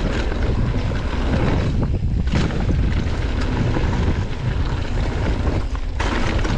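Wind rushing over the microphone as a mountain bike rides a trail, with steady tyre rumble and scattered knocks and rattles from the bike over rough ground.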